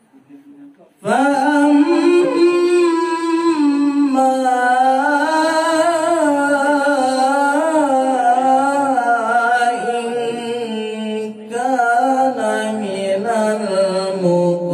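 A man reciting the Quran in the melodic tilawah style, holding long ornamented notes with a wavering pitch. He starts about a second in, and the voice dips briefly about three-quarters of the way through before going on.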